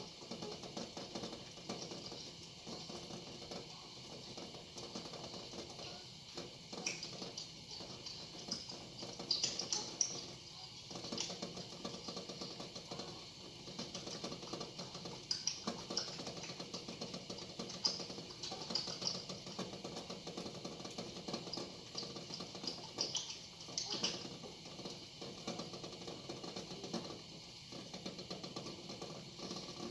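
Pot of eggs boiling on the stove: water bubbling steadily with many small irregular clicks and ticks.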